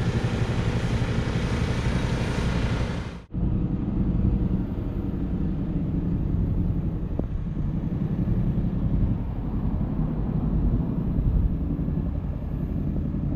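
Steady low rumble of a vehicle running, broken by an abrupt cut about three seconds in, after which a similar low rumble continues.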